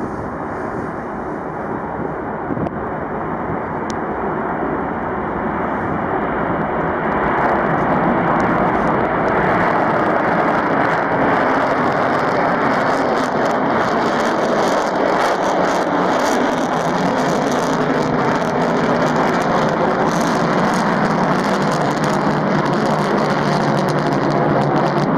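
B-1B Lancer's four afterburning turbofan jet engines at full afterburner power for a takeoff: a broad jet roar that grows louder over the first several seconds, then holds steady with a rough crackle on top.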